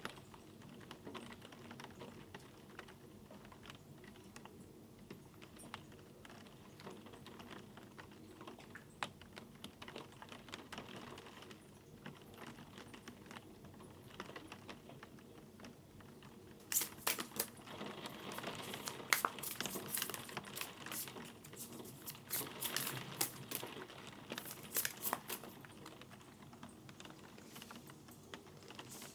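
Typing on a keyboard: sparse light taps at first, then a dense run of clicking from about 17 to 26 seconds in.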